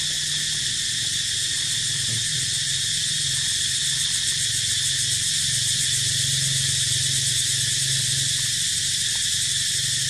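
A steady insect chorus with a fast, even pulsing, over a constant low hum.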